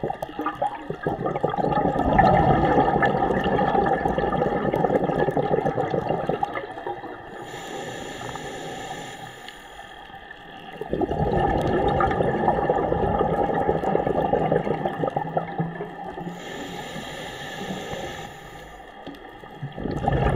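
Scuba diver's regulator breathing underwater: two long bursts of bubbling exhaled bubbles, each followed by a quieter hissing inhalation, with a third exhalation starting near the end.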